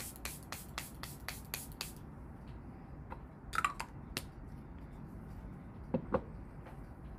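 Charlotte Tilbury Airbrush Flawless Setting Spray pump bottle misting in quick pumps, about four short sprays a second for roughly two seconds. A brief squeak follows about three and a half seconds in, then two soft knocks near six seconds.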